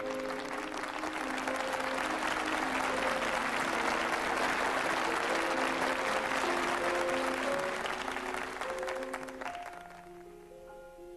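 Audience applauding over light instrumental accompaniment music. The applause dies away about two seconds before the end while the music plays on.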